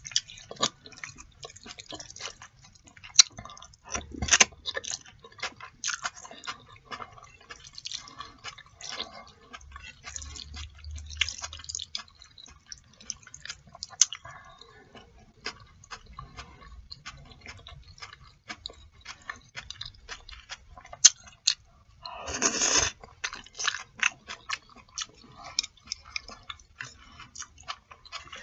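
Close-up wet chewing and mouth sounds of someone eating black bean sauce noodles (jajangmyeon): a steady scatter of small wet clicks and smacks. One longer, louder sound comes about three-quarters of the way through.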